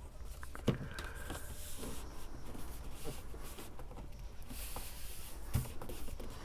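Paper and cardstock being handled and pressed into place, soft rustling with two light taps, one near the start and one near the end.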